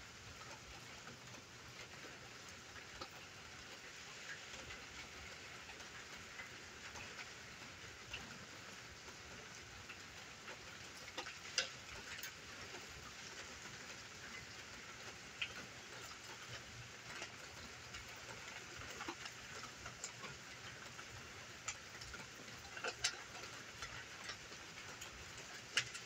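Light rain falling: a faint steady hiss with scattered ticks of drops, a few louder ones in the second half.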